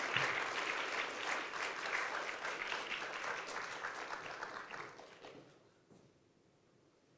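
Audience applause from a large seated crowd, dying away about five seconds in.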